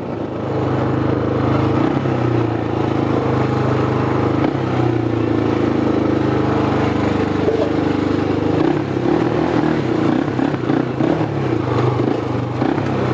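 Quad bike (ATV) engine running as it is ridden, getting louder about half a second in and then pulling steadily, its note turning uneven and choppy over the last few seconds on a rough dirt trail.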